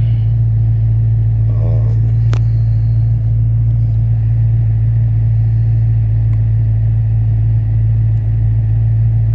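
2016 Dodge Challenger Hellcat's supercharged V8 idling with a steady deep hum, and a single sharp click about two and a half seconds in.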